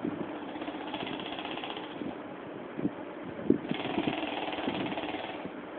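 A motor running with a rasping drone that swells twice, each swell lasting a second or two, sounding like snoring; a few short knocks fall between the swells.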